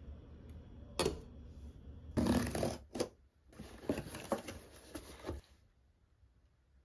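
Cardboard packaging being handled and opened: a single knock about a second in, then bouts of cardboard and plastic rustling and scraping that stop well before the end.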